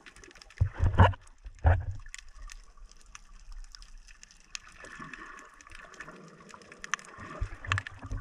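Muffled water sloshing and gurgling around an underwater camera as it is swum along just below the surface, with dull thumps about a second in and again near the end.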